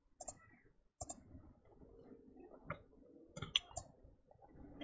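A handful of faint, irregular short clicks over low background noise.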